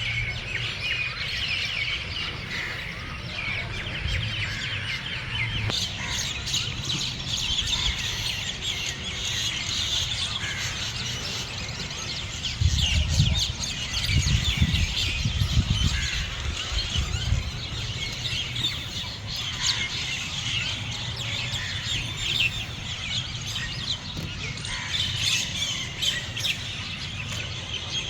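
A chorus of many small birds chirping, a dense overlapping stream of short, high calls. Underneath runs a low rumble of wind, rising to its loudest gusts about halfway through.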